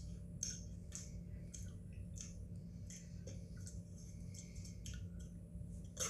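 Pringles Scorchin' Cheddar crisps being chewed: irregular crisp crunching clicks, a few a second, over a steady low hum.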